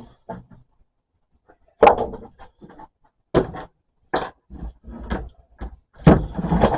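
Irregular knocks and clunks of parts being handled and set down on a workbench, about a dozen of them, with louder ones about two seconds in and near the end.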